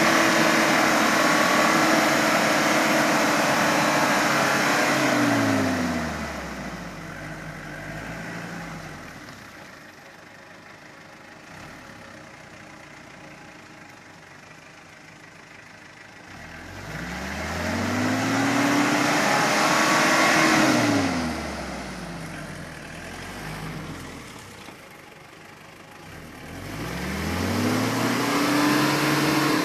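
Mitsubishi Triton L200 pickup's engine revving hard in three surges, each rising and then falling in pitch, dropping back to a low, quieter run between them.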